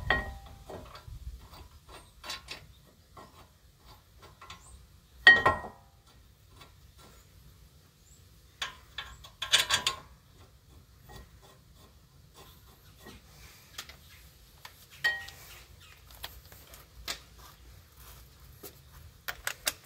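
Scattered metallic clinks and knocks as a new front brake caliper bracket is set against the steering knuckle and its bolts are put in. The loudest knock, about five seconds in, rings briefly; a quick run of clinks follows a few seconds later.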